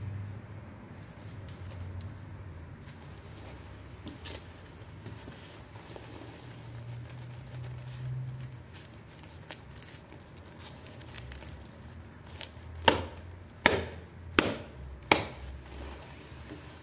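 Leather motorcycle gloves and suit rustling and creaking faintly as the gloves are pulled on and worked over the hands, with scattered small clicks. Near the end come four sharp knocks about three-quarters of a second apart.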